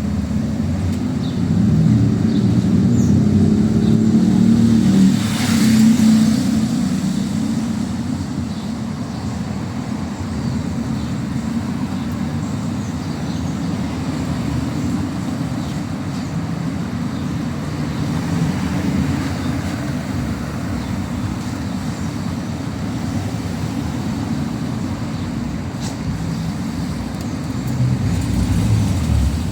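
City street traffic: cars passing with a steady low rumble, swelling for a few seconds near the start and again near the end, with a brief hiss about five seconds in.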